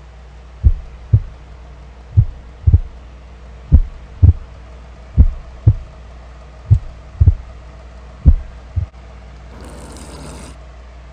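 Slow heartbeat sound effect: loud, low double thumps, lub-dub, repeating about every second and a half, six beats in all, stopping near the end.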